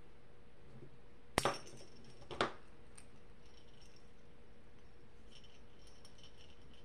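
Metal split key ring and keychain hardware clinking as a charm is worked onto it: a sharp double click about a second and a half in, another click a second later, then faint small ticks near the end.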